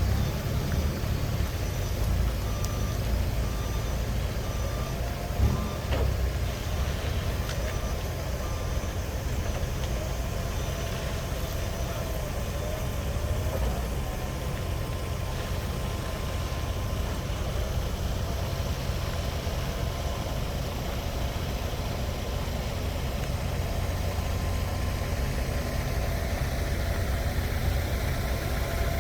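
Heavy vehicle's engine running steadily during the unloading of a baler, with a reverse alarm beeping repeatedly for several seconds near the start. There is a single sharp knock about five and a half seconds in.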